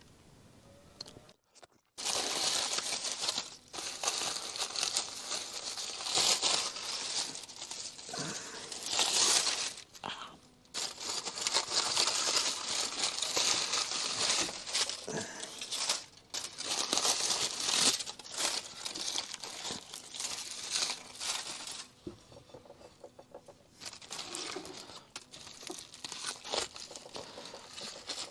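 Aluminium (tin) foil crinkling and rustling in irregular bursts as it is handled and opened around food cooked in it, with short pauses between.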